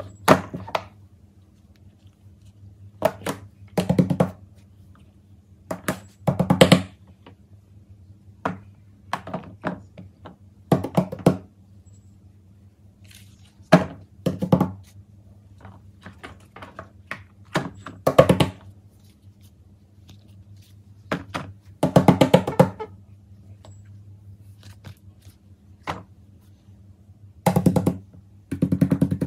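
Silicone pop-it fidget toys being set down and slid onto a pile on a table: a series of soft thunks and rubbing, flapping handling noises every second or two, over a faint steady low hum.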